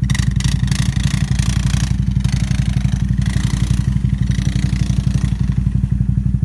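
ATV engine running steadily at low speed close by, with an even pulsing throb, while muddy water splashes and sloshes as a quad ploughs through a deep mud hole.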